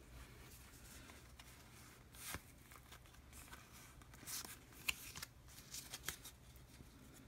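Faint handling of a small stack of Pokémon trading cards, the cards sliding and flicking against each other in short, scattered swishes with a few light clicks.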